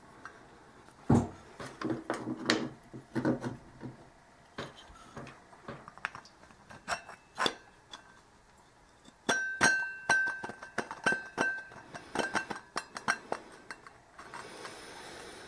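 Metal parts of an outboard water pump clinking and tapping as the drive shaft, its key and the metal pump plate are handled and fitted together. A run of sharp clinks comes about nine seconds in, one leaving a short ringing tone.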